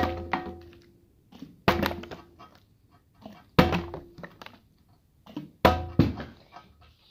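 Plastic water bottle flipped and landing hard on a glass tabletop four times, about two seconds apart. Each landing is a sharp thunk followed by a brief ringing that dies away.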